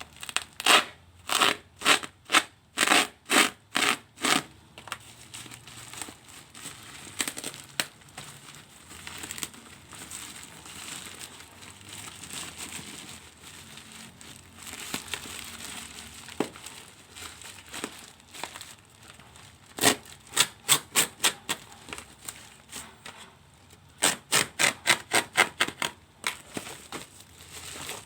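Packaging being opened by hand: runs of quick rasping tear or cut strokes, about two or three a second, near the start and twice near the end, with wrapping crinkling in between.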